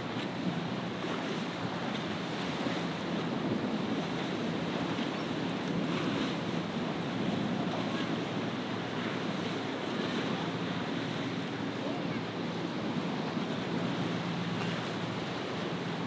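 Wind buffeting the microphone over choppy surf and breaking waves, with a faint, steady low hum of a sportfishing boat's engines running through the rough water.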